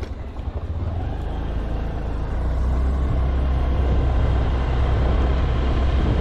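Steady low rumble of a moving road vehicle's engine, with road noise, growing a little louder after about two seconds.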